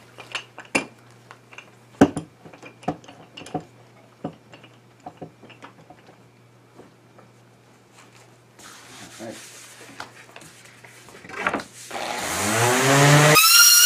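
Scattered light clicks and taps of hand work at a wooden bench, then near the end a random orbit sander starts, its motor winding up, and runs loudly against a maple board.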